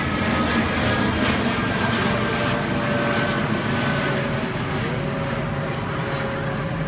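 Boeing 787-9 Dreamliner's twin turbofan engines in a climb just after take-off: a steady jet roar with faint whining tones that slowly drop in pitch, easing off a little toward the end as the airliner moves away.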